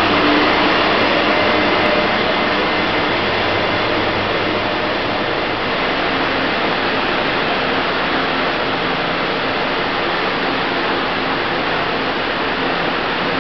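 Diesel locomotive hauling a passenger train out of an underground station, then its carriages rolling past: a loud, steady rumble of engine and wheels on rails. It is loudest in the first few seconds as the locomotive goes by, and its low engine hum fades about four seconds in, leaving the carriages' rolling noise.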